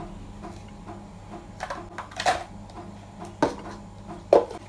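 Foil cupcake cups and a container lid being handled on a metal baking tray: a few short knocks and clatters, the loudest near the end, over a low steady hum.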